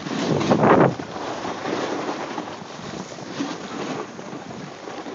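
Wind rushing over a phone's microphone as it moves over snow, with a louder gust of noise within the first second.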